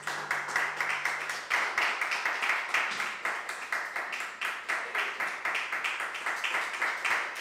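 Flamenco percussion: a fast, steady run of sharp claps and foot strikes, several a second.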